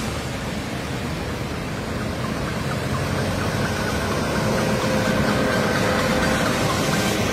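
A motorcade of police motorcycles, a minibus and pickup trucks driving past on a wet road: engines running and tyres hissing on the wet surface. It grows louder about halfway through as the bigger vehicles come by.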